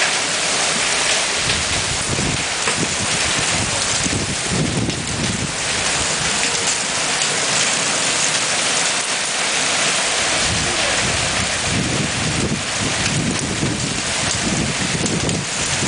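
Hail mixed with rain pelting a wet rubber-tiled patio and garden plants: a dense, steady patter. Low rumbles swell and fade now and then underneath.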